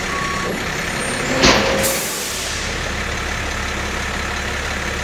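Lorry engine idling, with one last reversing beep at the start. About a second and a half in comes a thud as the truck meets the dock bumper, followed by a hiss of air brakes that fades over about a second.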